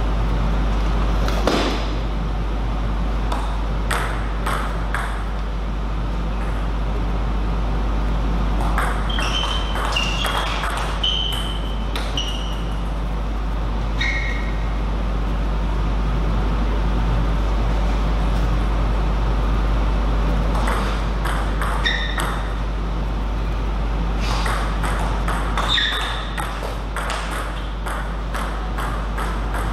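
Table tennis rallies: the ball clicks off paddles and table in quick runs of hits, several times, with short high squeaks among them. A steady low hum sits under everything.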